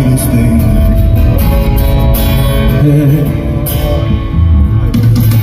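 Live band playing a slow rock song: sung vocals over strummed guitar and bass, loud through a PA system.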